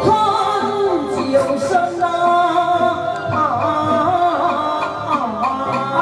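Taiwanese opera (gezaixi) aria sung in Taiwanese Hokkien by a costumed performer into a microphone, with instrumental accompaniment under the melismatic vocal line.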